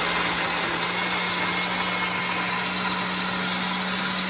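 Countertop blender motor running steadily with a constant hum, liquefying soaked spices, nuts and chicken broth into a smooth mole purée.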